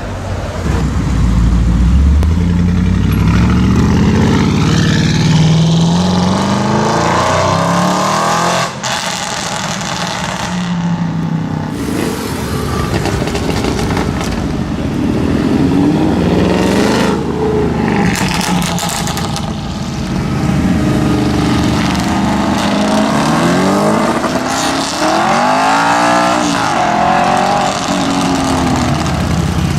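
Audi RS6 C7's twin-turbo V8 through a Capristo exhaust, revving up and accelerating again and again, its pitch climbing and falling. Sharp exhaust crackles and pops come as the revs drop.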